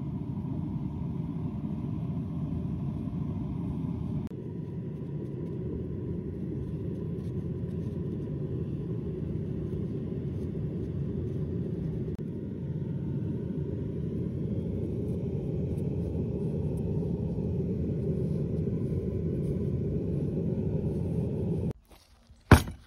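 Steady low rumble that shifts slightly twice and stops near the end, followed by one sharp knock.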